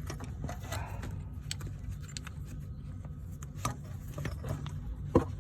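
Brake caliper piston wind-back tool being turned against a van's rear caliper piston: irregular small metallic clicks and knocks, with one sharper knock near the end, over a steady low rumble.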